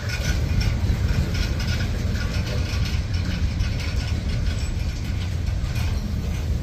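Freight cars of a Norfolk Southern manifest train rolling past, their steel wheels rumbling steadily on the rails with a running patter of clicks.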